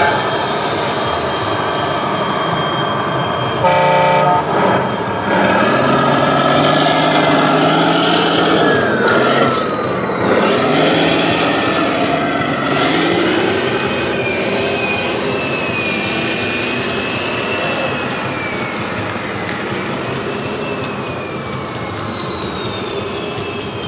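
Brief air-horn toot about four seconds in, like a scale truck's sound-module horn, over a steady din of hall noise.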